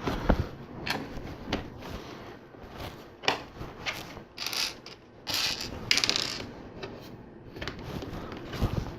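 Small plastic LEGO pieces clicking and clattering as they are handled and sorted, with a couple of short rustles about halfway through.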